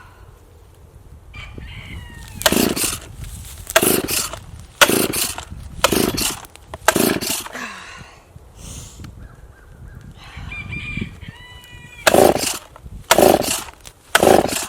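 Stihl chainsaw being pull-started without catching: five quick yanks of the starter cord about a second apart, then after a pause three more.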